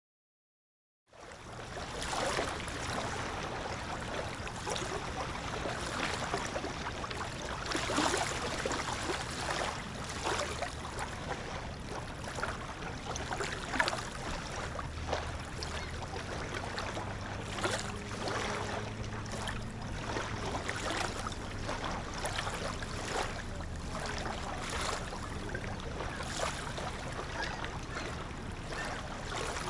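Small waves lapping and washing onto a pebbly Lake Ontario beach: a steady wash broken by frequent small splashes, starting about a second in. A faint low hum runs underneath from about the middle of the stretch for several seconds.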